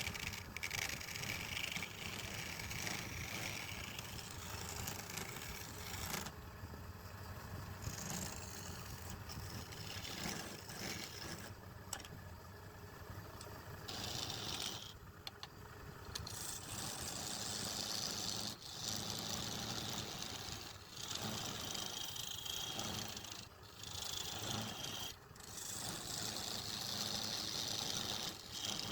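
Wood lathe running with a steady motor hum, while a turning tool cuts the spinning wood in a hissing scrape that comes and goes, dropping away for a few seconds at a time.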